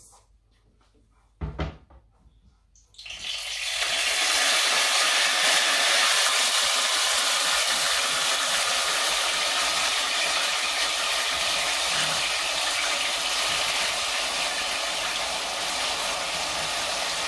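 Sliced tomatoes and onions dropped into hot cooking oil in a frying pan, sizzling steadily from about three seconds in. A short knock comes just before.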